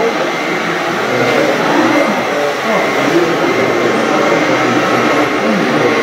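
Scale RC hydraulic construction machines working: a steady high whine of their hydraulic pumps and electric motors over a dense background of many voices.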